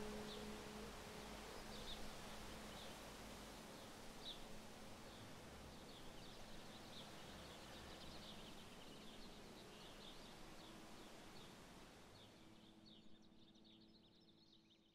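Faint outdoor ambience: a soft hiss with scattered short, high bird chirps, fading out near the end.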